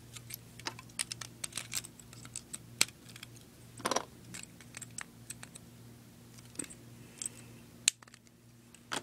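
Lego plastic pieces clicking and clattering as they are handled and set on a plastic Lego baseplate: scattered sharp, irregular clicks, the loudest near three seconds and near eight seconds.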